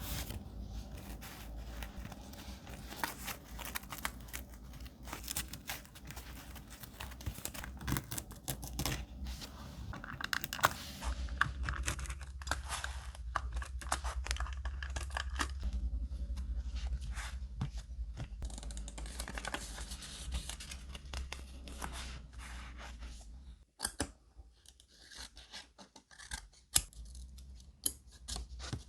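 Paper being snipped with scissors and torn by hand, with scratching and rustling of paper in irregular short snips and scrapes. The background changes abruptly about eleven seconds in and again near twenty-four seconds.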